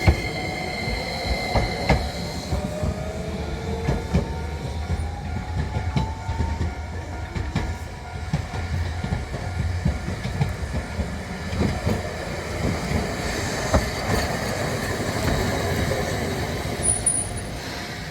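A streetcar running over the crossing, its wheels clacking over the rail joints in a long string of clicks, while its motor whine rises in pitch as it speeds up.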